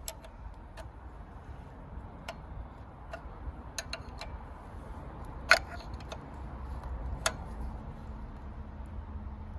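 Steel spanner clicking and tapping on the injector pipe's union nuts while they are tightened: scattered sharp clicks, the loudest about five and a half seconds in, over a low steady hum.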